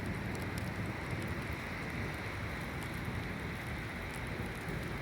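Steady rain falling, with scattered drop ticks over a low rumble.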